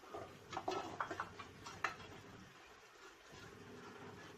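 Spoon stirring a thick cream gravy in a pan, with a few light clicks and scrapes of the spoon against the pan in the first two seconds, then quieter stirring over a faint steady hum.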